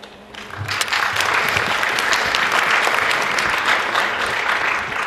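Audience applauding in an auditorium, starting about half a second in and dying down near the end.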